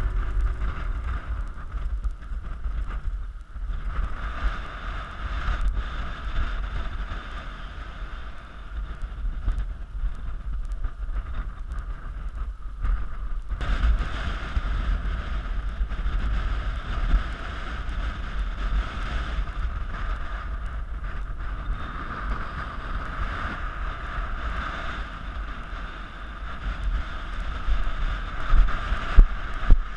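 Wind rushing over the microphone of a camera riding on a radio-controlled glider in flight: a steady rush of airflow noise with low buffeting, growing louder and gustier near the end.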